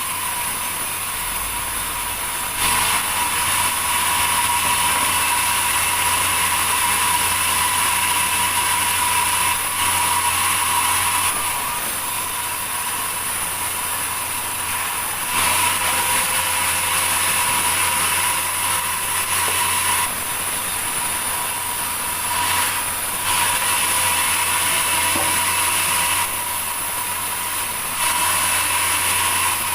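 Sawmill machinery running steadily with a whine. Its loudness steps abruptly up and down every few seconds.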